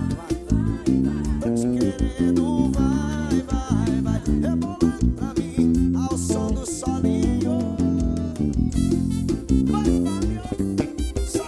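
Instrumental break of a pop song: a guitar plays the lead melody over a repeating bass line and drums.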